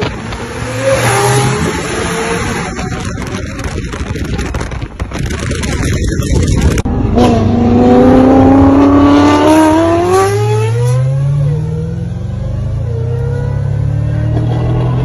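High-performance car engines: first a supercar passing with loud engine and road noise, then, after a cut, an engine accelerating hard through the gears, its pitch climbing steadily and dropping back at each upshift.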